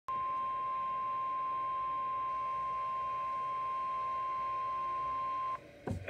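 NOAA Weather Radio warning alarm tone, the steady 1050 Hz tone that announces a warning, coming through a Midland Public Alert weather radio's speaker. It is one unbroken high tone about five and a half seconds long that cuts off abruptly, followed by a short low thump.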